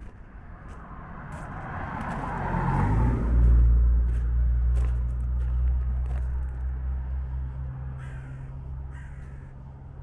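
A motor vehicle passing close: the noise builds over the first three seconds and is loudest about three and a half seconds in, then a steady low engine hum that eases off after about eight seconds.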